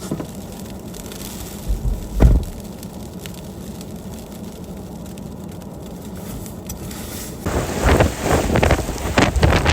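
Blizzard wind: a steady low rush with a couple of thumps about two seconds in, then hard, irregular gusts buffeting the microphone for the last couple of seconds.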